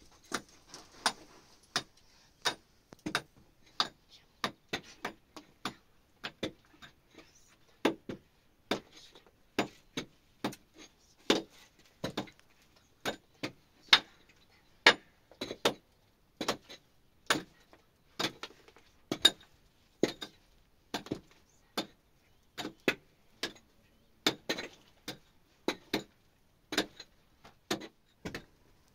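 Repeated sharp knocks, about one and a half a second, fairly regular but uneven in strength, like steady work with a tool striking something hard.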